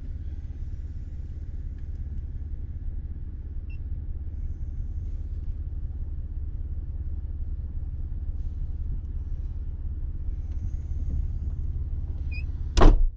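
Off-road vehicle's engine idling with a steady low rumble, and one brief loud thump near the end.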